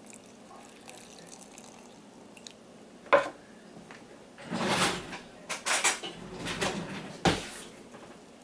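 A measuring cup is set down on a wooden board with a sharp knock about three seconds in. Then a metal spoon stirs thick sourdough starter in a glass jar in several bursts, with a knock against the glass near the end.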